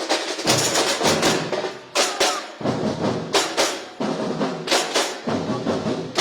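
Samba bateria drum corps playing a samba rhythm: dense, loud drumming punctuated by strong accented hits recurring under a second apart.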